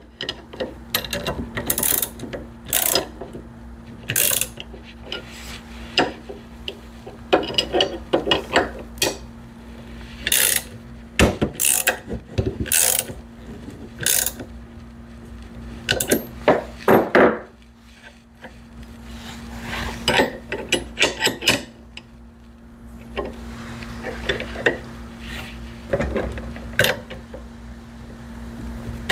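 Socket ratchet wrench clicking in short bursts, with pauses between them, as the mounting bolts of a pillow-block bearing are tightened, along with metal clinks of the wrenches against the bolts and steel frame.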